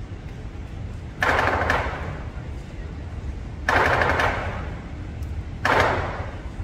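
Lion dance cymbals played in three short rapid rattling rolls, about two seconds apart, with no drum under them.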